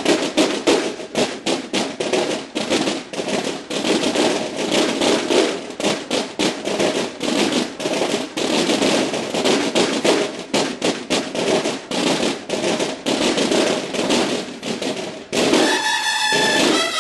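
Marching band drums of a banda de guerra playing a fast, dense drum passage with no bugles. About a second and a half before the end, the bugles come back in with held notes over the drums.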